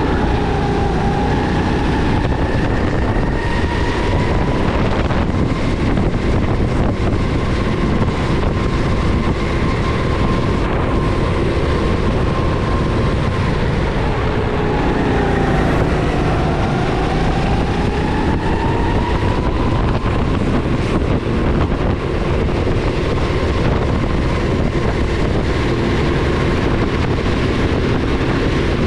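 Rental go-kart engine running hard through a lap under a constant loud roar. Its pitch climbs slowly as the kart accelerates, drops sharply about halfway through as it slows for a corner, then climbs again.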